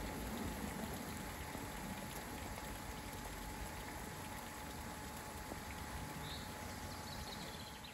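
Steady rush of water flowing through a channel at a small weir, with a few faint high chirps; the sound fades out at the very end.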